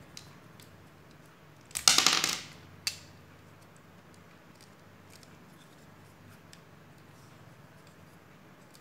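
Plastic LEGO bricks being handled and pressed onto a model: faint scattered clicks, a loud brief clattering rattle about two seconds in, and one sharp click just under a second after it.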